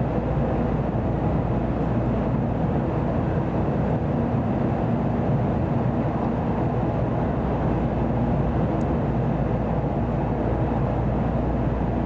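Steady rumble and rushing noise inside the passenger cabin of a Tokaido Shinkansen kodama train running fast under hard acceleration, with a faint steady hum underneath.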